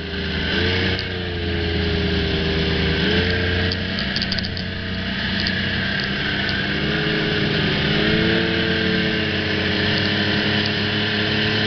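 Vehicle engine running steadily while driving over a snowy road, its pitch rising and falling slightly a few times as the throttle changes.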